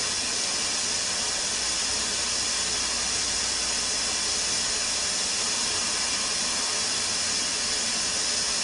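Ninja Foodi pressure cooker hissing steadily as steam escapes around its float valve while it builds pressure: the valve has not yet risen to seal.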